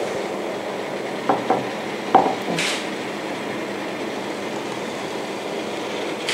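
Steady rushing of water boiling hard in an open aluminium steamer pot. A few light knocks come about one to two seconds in as a ceramic dish is picked up off a wooden board.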